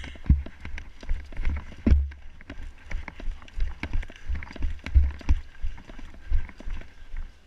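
Footsteps of a player walking with a body-worn camera: dull thuds about twice a second, with small clicks and rattles of gear.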